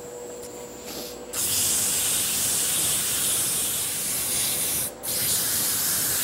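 Sandpaper held by hand against a wooden baseball bat spinning on a wood lathe, making a steady hiss. The hiss starts about a second and a half in and breaks off for a moment about five seconds in.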